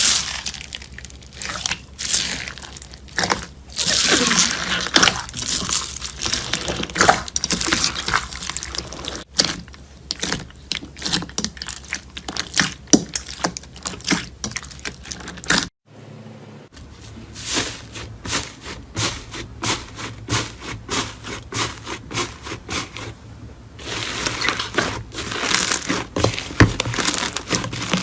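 Hands squeezing, poking and stretching slime: dense crackling, popping and sticky clicking, broken by a short silence a little past halfway.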